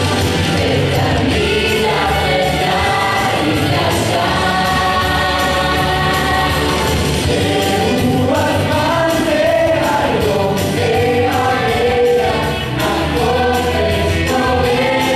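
A mixed group of men and women singing an Israeli song medley together into microphones, over amplified music with a steady beat.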